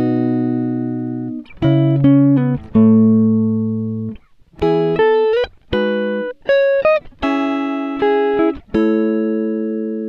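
Background instrumental music: a run of chords, each struck together, ringing and fading before the next.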